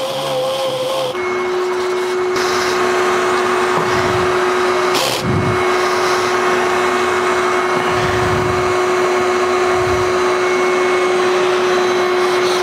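Makita HP001G 40 V cordless hammer drill running under load, boring with a 7/8-inch bit: a steady motor whine that settles on one pitch about a second in. A brief crack comes about five seconds in.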